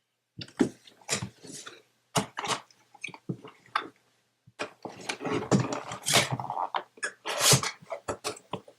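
Cardboard packaging being handled: irregular scrapes, knocks and rustles as the microphone's box and insert are pulled apart and moved about, getting busier in the second half.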